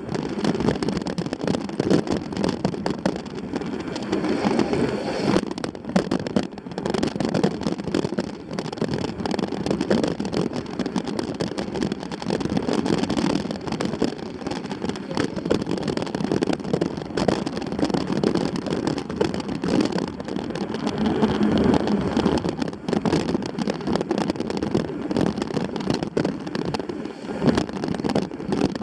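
Continuous rushing wind noise on a moving rider's microphone, with many small knocks and rattles.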